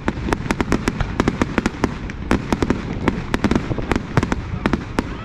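Fireworks display: aerial shells and rockets bursting overhead in a rapid, irregular string of sharp bangs and crackles, several a second.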